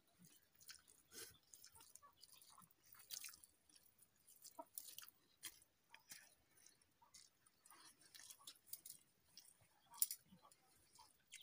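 Faint chewing and small scattered clicks of rice being eaten by hand from steel plates, with one sharper click about ten seconds in.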